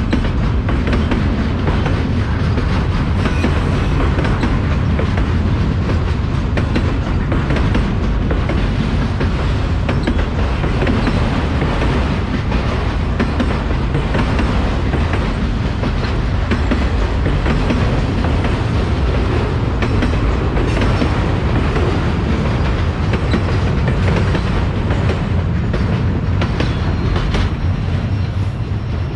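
Loaded autorack freight cars rolling past at close range: a steady rumble of steel wheels on rail with repeated clicking and clacking over the rail joints.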